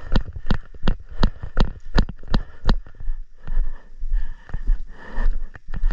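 Footsteps of a player jogging, even thumps about three a second.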